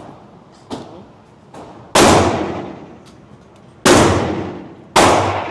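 Three loud Glock pistol shots, spaced unevenly about two seconds, four seconds and five seconds in, each followed by a long echoing decay. Two fainter shots come about a second and a half earlier.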